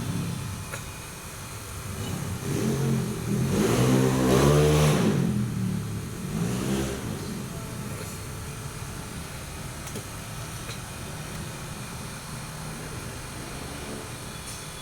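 A vehicle engine swells and fades over a few seconds as it passes, with a shorter, weaker swell about two seconds later.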